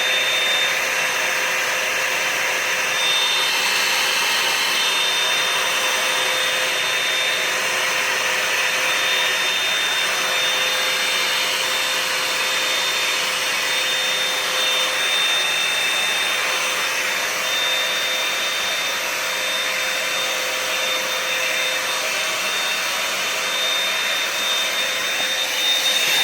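Revlon One Step hair dryer and volumizer (a hot-air brush) running steadily: a constant rush of blown air with a faint, even motor whine.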